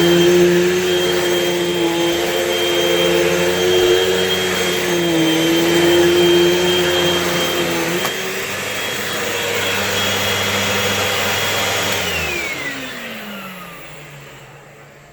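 Hoover Elite Rewind upright vacuum cleaner running with a steady motor whine, its pitch sagging briefly about five seconds in. About twelve seconds in it is switched off, and the whine falls in pitch and fades as the motor spins down.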